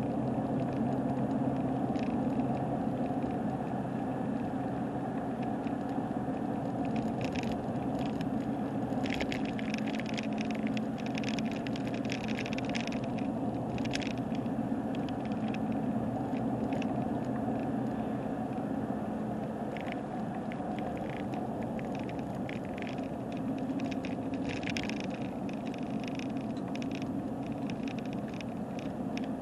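Steady engine hum and road noise inside a moving car. Over it come bursts of light clicking rattles, which the driver puts down to the camera rattling on the rough road.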